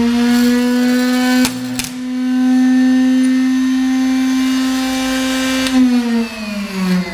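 Bandsaw blade welder switched on and butt-welding steel strapping: a loud, steady electrical hum with two sharp cracks about a second and a half in. Near the end the hum winds down, dropping in pitch.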